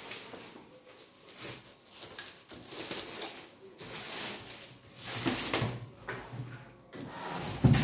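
Clear plastic wrap crinkling as it is slit with a knife and pulled off a carrom board, in several short rustling bursts.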